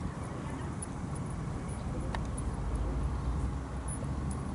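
Low outdoor rumble, steady and a little stronger in the middle, with a few faint ticks.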